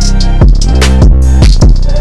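Background music with a steady beat: deep bass and sharp drum hits.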